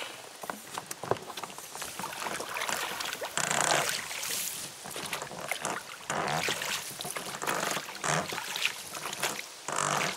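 Oars rowing an inflatable dinghy: a splashing wash of water with each stroke, roughly every two seconds, with a few sharp knocks between strokes.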